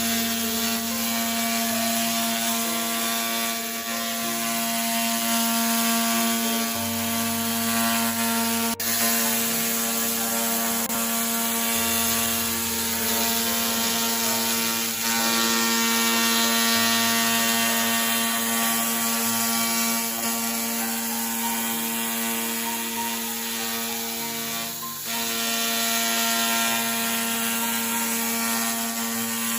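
Handheld fiber laser cleaning head running on metal, a steady mechanical buzz with a constant hum, as the laser removes rust or paint. It breaks off briefly twice, about a third of the way in and near the end.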